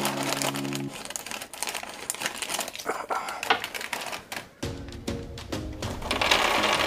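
Crinkling and rustling of a metallised plastic snack packet as it is cut open with scissors and handled, over background music with held notes.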